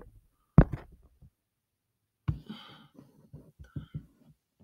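A sharp click about half a second in, then a short breath and a few soft clicks and knocks close to the microphone.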